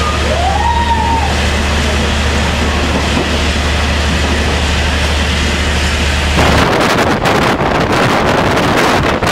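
Taiwan Railway ordinary train's coach (40TPK32200, hauled by an R100 diesel-electric locomotive) running: a steady low hum and rumble inside the car. About six seconds in the sound changes abruptly to a rushing, fluttering noise of wind buffeting the microphone over the train's running noise.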